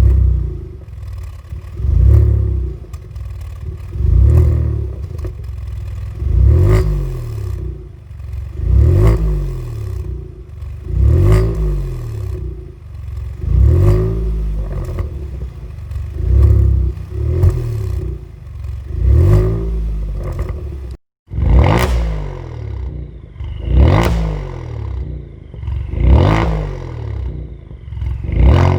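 Kia Stinger 3.3 twin-turbo V6 revved again and again through a tuned exhaust with a middle muffler and a variable-valve end muffler. Each rev rises and falls in pitch, about every two and a half seconds.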